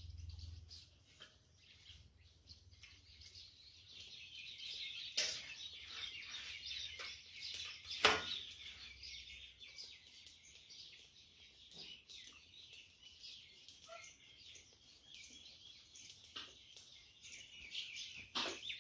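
Many small birds chirping continuously in a dense high twitter, with a few sharp clicks cutting across it, the loudest about eight seconds in.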